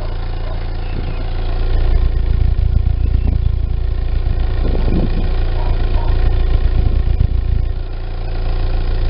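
Daewoo Nubira's 2.0 L DOHC four-cylinder engine (U20SED) running with a misfire, the sign of an internal engine fault. It gets louder about a second and a half in, dips briefly near the end, then picks up again.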